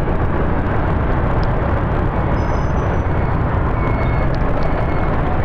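Steady street-traffic noise from riding in a stream of motorbikes: engines and road and wind noise, mostly a low drone, with a few faint short high tones.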